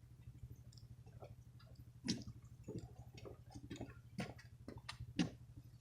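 Faint scattered clicks and knocks over a low steady hum, the loudest knocks coming about two, four and five seconds in.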